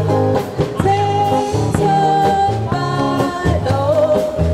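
Live band music with a steady beat under a held melody line.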